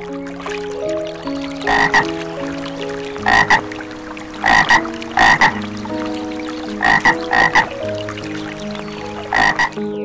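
Frog croaking in short clusters of two or three calls, every second or two, over background music with sustained notes.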